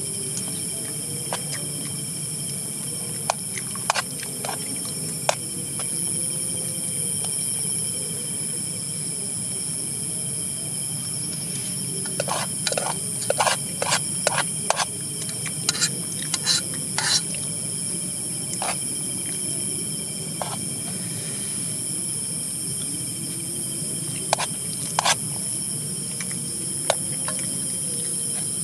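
Steady high-pitched chorus of insects, with scattered sharp clicks and taps that come thick and fast for a few seconds about halfway through.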